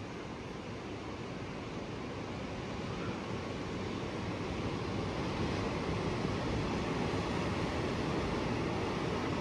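Ocean surf breaking on a rocky shore, a steady wash of waves that grows slowly louder.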